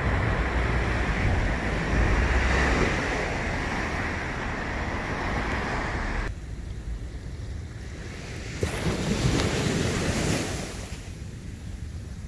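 Ocean surf washing onto a sandy beach, with wind buffeting the microphone as a low rumble. The wind rumble drops away abruptly about six seconds in, returns briefly, then drops again near the end.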